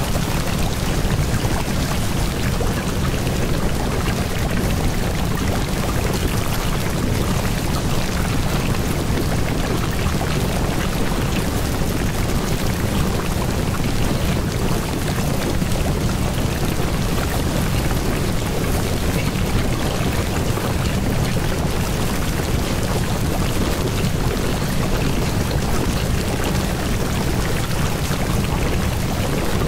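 Steady, unbroken rain sound, a dense hiss of falling rain with a heavy low rumble, used as the masking track over subliminal affirmations.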